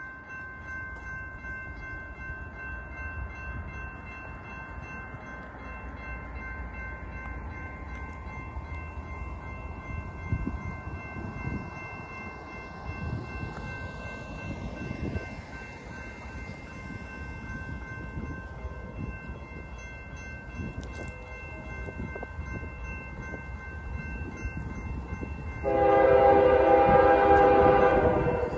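Nathan K5HL five-chime air horn on the approaching BNSF 7626 locomotive, sounding one loud blast of about three seconds near the end. Before it there is only a steady low rumble and a car passing on the road beside the track.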